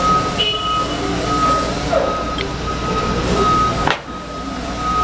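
An electronic back-up alarm beeping steadily at one pitch, about two beeps a second, over a low steady hum. A single sharp click comes a little before the end.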